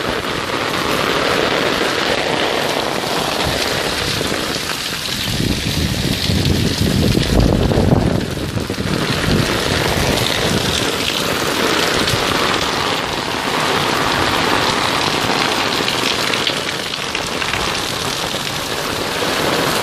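Torrential rain pouring down in a steady, dense rush.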